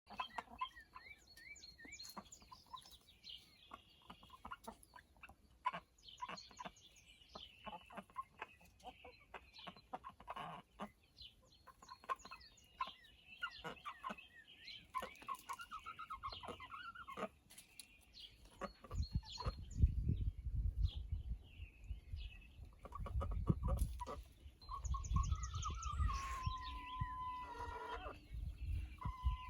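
A rooster making strange whistling calls: many short, high chirping whistles, then a longer steady whistle near the end. A low rumble runs under the second half.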